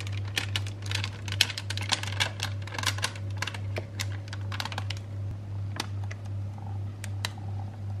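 Rapid, irregular clicks and taps of a spatula against a plastic food processor bowl as cheesecake batter is poured and scraped out. The clicks are dense for about five seconds, then come only now and then. A steady low hum runs underneath.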